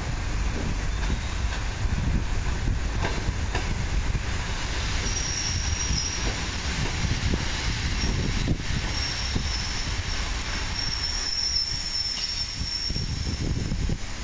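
Aeroexpress electric multiple-unit train rolling slowly into the station with a steady low rumble, and a thin high squeal as it slows from about a third of the way in until near the end.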